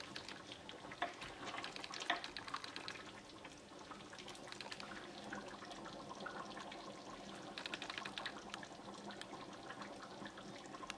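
Thick white chicken chili in a pot: a wooden spoon stirring through the sauce near the start, then soft wet crackling and bubbling as it simmers, with the ticks thickening again about eight seconds in.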